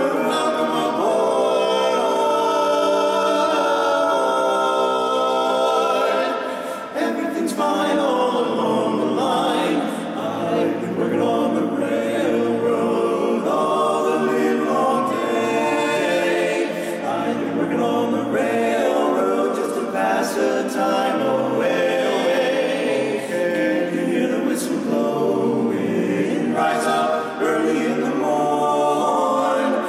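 Barbershop quartet of four men singing a cappella in close four-part harmony (tenor, lead, baritone and bass). There is a short break between phrases about seven seconds in.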